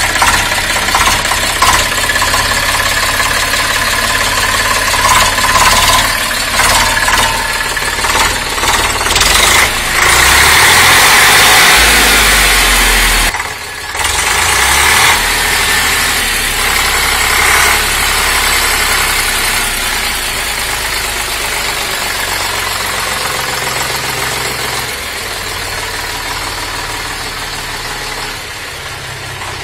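Eicher 485 tractor's three-cylinder diesel engine running as the tractor pulls away and drives into a tin-walled shed. It is louder for a few seconds around ten seconds in, drops briefly, then grows steadily quieter as the tractor moves off.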